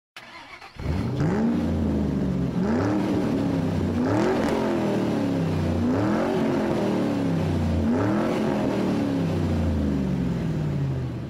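Car engine being revved in about five throttle blips, each rising quickly in pitch and sinking back towards idle.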